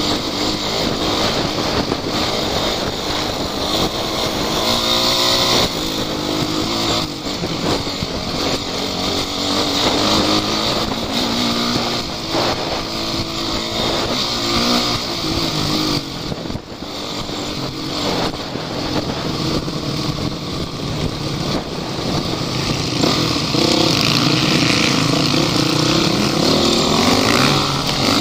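Off-road vehicle engine revving, its pitch rising and falling over and over as the throttle is worked.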